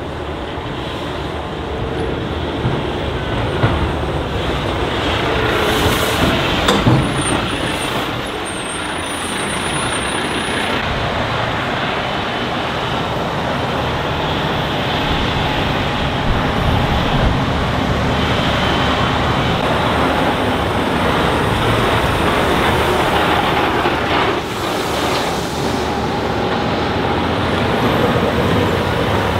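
Heavy Tatra off-road trucks' diesel engines running as they drive over a rough dirt track, a continuous deep engine rumble with tyre and chassis noise.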